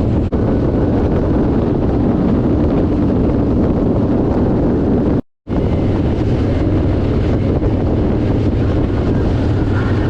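Harley-Davidson motorcycle riding at speed: wind buffeting the microphone over the engine's steady low running. The sound cuts out completely for a moment about halfway through.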